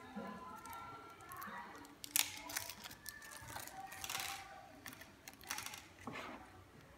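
Irregular light clicks, taps and short scrapes of small parts and screws being handled inside an open HP 4540s laptop chassis, the sharpest click about two seconds in.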